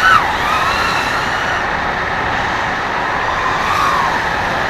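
FPV racing drone's motors whining over a steady rush of noise, the pitch rising and falling as the throttle changes near the start and again in the second half.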